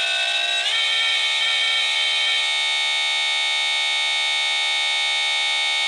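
72V 3000W BLDC electric motor whining at full throttle. Its pitch steps up slightly about half a second in, then holds steady at top speed as the soft-start ramp finishes.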